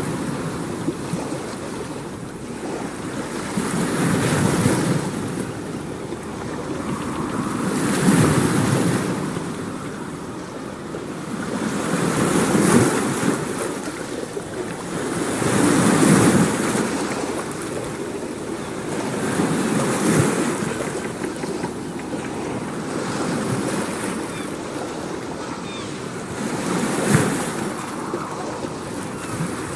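Surf: waves washing in and drawing back, a rushing swell roughly every four seconds.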